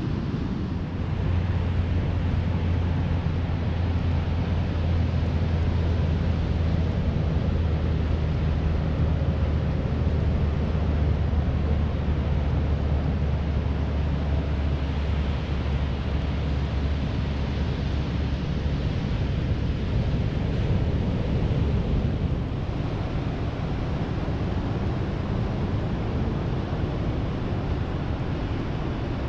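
Wind rushing over the microphone of a moving electric mountain bike, with a steady low hum through the first two-thirds that then fades away.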